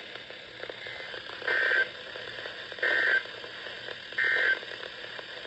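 Emergency Alert System end-of-message signal: three short buzzing SAME data bursts, each about a third of a second long and about a second apart, over radio hiss.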